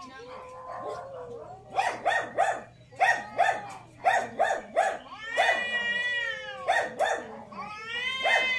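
Cats yowling in a fight standoff: groups of short, rapid cries about three a second alternating with long drawn-out yowls that rise and fall in pitch.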